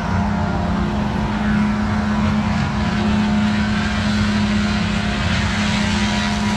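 Heavy diesel engine of a forestry machine running at a constant speed: a steady, unchanging drone.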